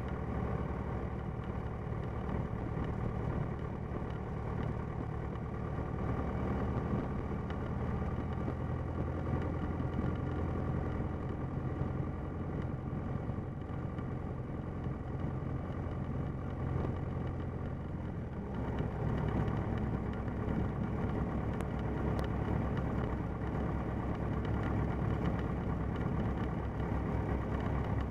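Light single-engine aircraft's piston engine running at low power while the plane taxis, heard from inside the cockpit. The engine note changes once, about two-thirds of the way through.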